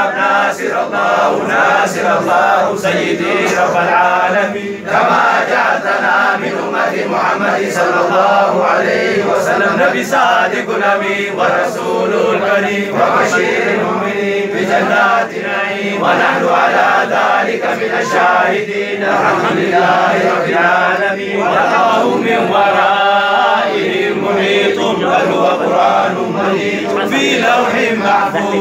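A group of men chanting a Harari zikri, Islamic devotional dhikr in Arabic, in unison. The chanting is loud and unbroken.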